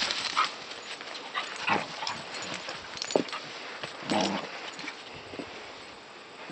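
Border collies play-fighting: scattered short yips and whimpers, with a sharper sound about three seconds in and a fuller, louder one about four seconds in.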